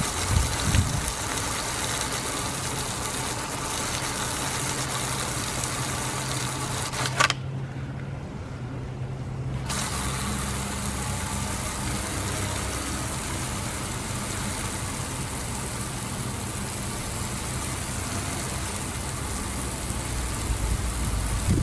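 Hose nozzle's water jet hissing as it sprays onto a fast-spinning 3D-printed Pelton wheel, over a steady low hum from the spinning wheel and the generator motor it drives. The spray hiss drops out for about two seconds about a third of the way in while the hum carries on.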